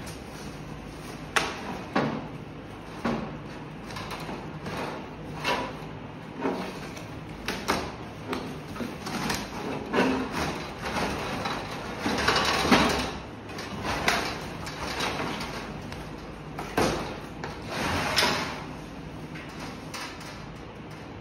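Cardboard carton being torn open and sheet-metal CO2 dampers being handled inside it: a string of knocks and clunks of metal against metal and cardboard, with longer stretches of cardboard rustling and scraping about twelve seconds in and again near eighteen seconds.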